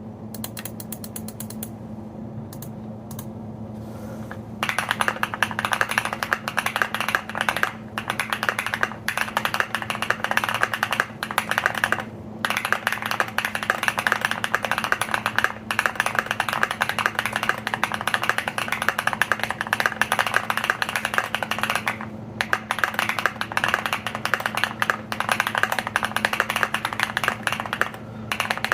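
Typing on a Keychron Q1 V2 mechanical keyboard with lubed Techno Violet switches, PBT doubleshot keycaps, tape mod and polyfil. Fast, continuous keystrokes start about four and a half seconds in and carry on with a few brief pauses.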